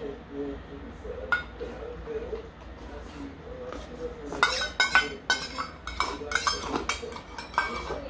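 Metal spoon clinking and scraping against a small stainless steel bowl while someone sips from it: a few clinks in the first half, then a quick run of clinks from about four and a half seconds in.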